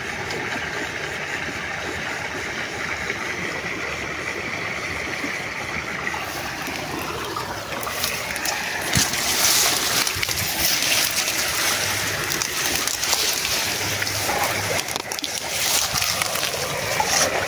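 Small creek's water running and splashing, louder about a third of the way in.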